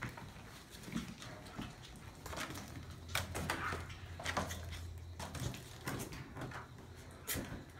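Maltese puppies scuffling and pawing at a foil balloon: a run of scattered light taps, scratches and rustles, busiest in the middle.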